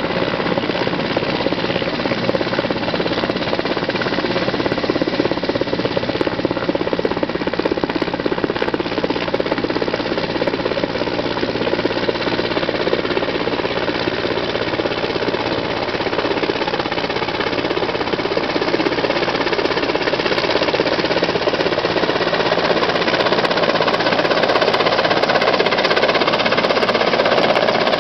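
Helicopter flying in to land, its rotor beating steadily with turbine noise underneath, getting louder as it descends toward the pad in the last few seconds.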